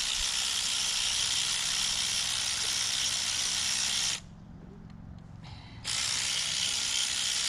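Cordless electric ratchet running, spinning out the 10 mm coil-pack screws with a steady, hissy whir. It stops sharply about four seconds in and starts again under two seconds later.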